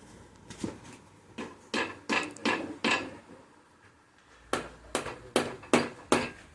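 Hammer blows on parts of a Mazda 13B rotary engine being taken apart. There is a run of about six sharp strikes, a pause of over a second, then about five more, spaced a little under half a second apart.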